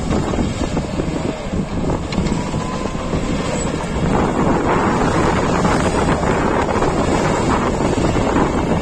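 Wind buffeting the microphone: a loud, rough rushing noise that grows louder about four seconds in.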